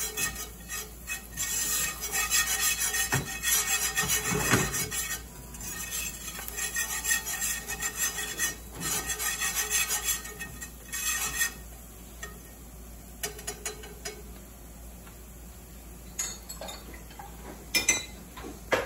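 Metal whisk scraping and stirring flour roux with onions in a cast iron skillet, in quick repeated strokes for about twelve seconds; then the stirring stops, leaving a few light clicks near the end.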